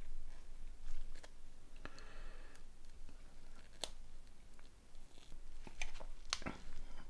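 Small phone parts and tools handled on a work surface: several sharp, scattered clicks and a brief scratchy scraping about two seconds in.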